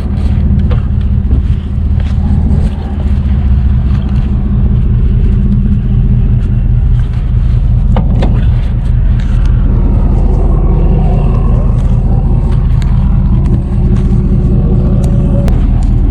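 Tow truck engine running steadily with a low rumble, heard from inside the cab, with a few light clicks.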